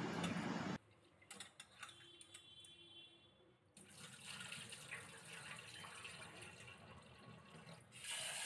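Rice being washed by hand in a steel saucepan at a kitchen sink. A rush of water cuts off abruptly under a second in, followed by quiet swishing of grains and water with a few light clicks. The rinse water is tipped out, and the tap runs into the pot again near the end.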